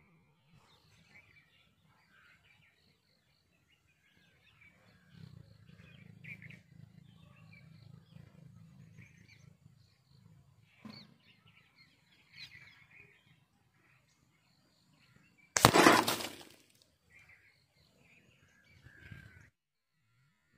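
A single loud, sharp crack of a CO2 air-pistol shot at the target, about three quarters of the way in, over faint birdsong.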